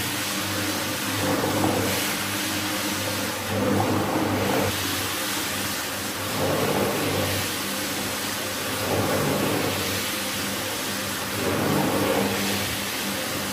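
A rug-cleaning machine's motor running steadily, its sound swelling every two to three seconds as it is worked.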